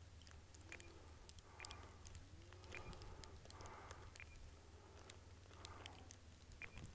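Near silence: a faint low hum with scattered light clicks.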